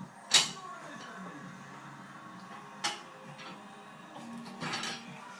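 Metal spoon knocking and clinking inside a dishwasher: a sharp clink just after the start, another a little before three seconds, and a short rattle near the end.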